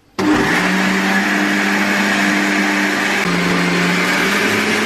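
Countertop jug blender switched on, its motor starting suddenly and running loud and steady as it blends a runny hazelnut and milk mixture. The motor's pitch drops about three seconds in, then rises again a second later.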